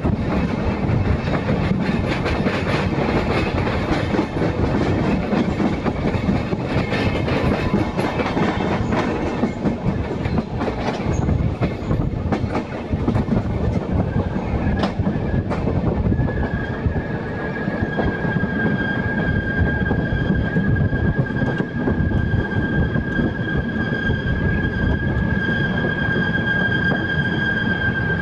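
Interregio passenger train's wheels running on the track, heard from the coach, with sharp clicks over rail joints and points as it rolls into the station. About halfway through, a steady high-pitched wheel squeal sets in and holds as the train brakes to a stop at the platform.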